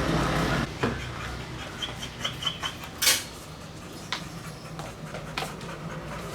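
Light metallic clinks and clicks at irregular intervals, with a short run of high pings about two seconds in and the loudest click about three seconds in. A low steady hum fades out within the first second.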